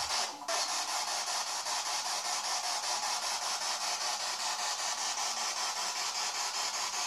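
Steady hiss with a fast, even pulsing running through it, with a brief dip and a click about half a second in.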